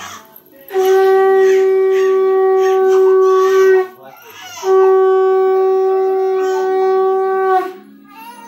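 Conch shell (shankha) blown in two long, steady, loud blasts of about three seconds each, with a short break between them.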